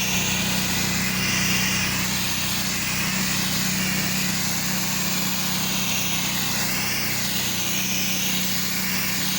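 Pressure washer running: its engine hums steadily under the hiss of the high-pressure water spray, which wavers in tone as the wand moves, while the concrete is rinsed down.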